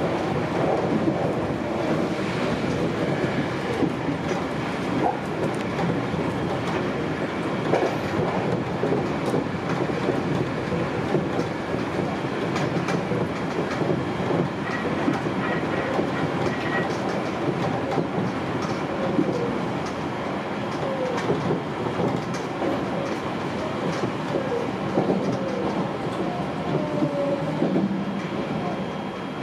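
Sanyo Electric Railway 5000 series electric train running at speed, heard from inside the front car: a steady rumble of wheels on the track with clickety-clack over rail joints. In the later seconds, short wheel squeals come as it runs into a curve.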